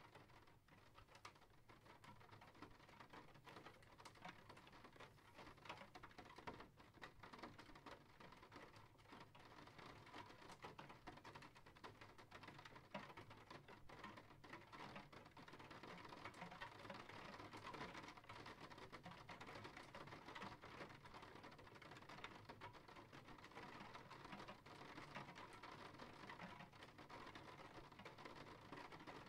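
Faint steady rain: a dense patter of fine drop ticks.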